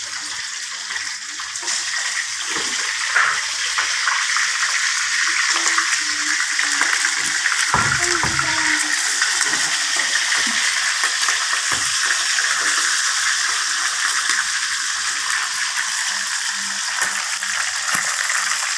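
Mackerel frying in hot oil in a wok: a steady sizzle with scattered small crackles, and a dull thump about eight seconds in.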